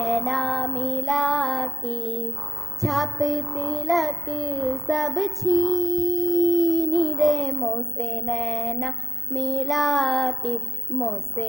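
A girl singing solo into a microphone, her voice gliding and ornamenting between notes, with one long held note about midway.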